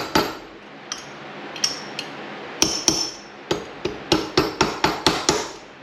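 Light hammer taps on a 13mm socket, driving a new rotary lip seal into an RB26 individual throttle body's shaft bore. A few scattered sharp metallic taps, one ringing briefly, then a quick run of about four or five taps a second near the end.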